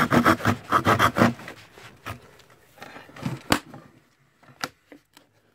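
Small hand saw cutting thin plywood in quick, short strokes, about five a second, for the first second and a half, followed by fainter scraping. A single sharp knock comes about three and a half seconds in.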